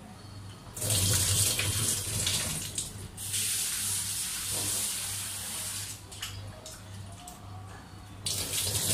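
Kitchen tap running into a steel bowl as black grapes are rinsed by hand. The water starts about a second in, eases off around six seconds, and gushes again briefly near the end.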